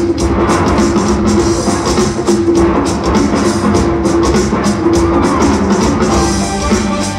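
Loud stage-show music with a steady beat, accompanying a group dance number.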